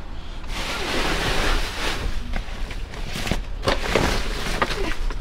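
Rustling noise, then several short knocks, from boxes and bags of food being handled and moved.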